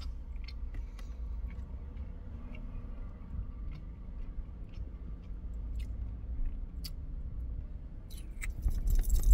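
A man chewing a bite of tender barbecue pork rib, soft wet mouth clicks over a low steady rumble. A louder rustling burst comes near the end.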